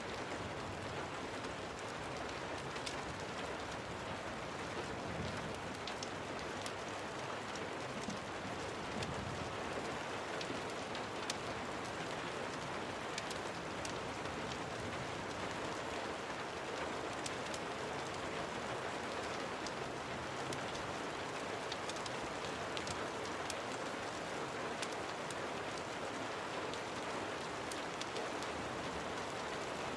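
Steady rain falling, with scattered sharp ticks through it.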